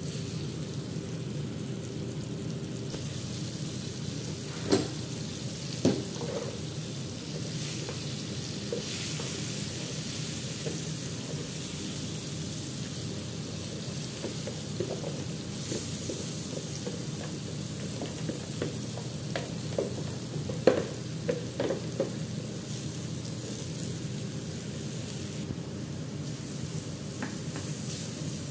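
Butter sizzling in a stainless steel frying pan over a gas flame while a wooden spoon stirs it, with a few sharp knocks of the spoon against the pan. Partway through, diced onions are tipped in and fry in the butter, stirred.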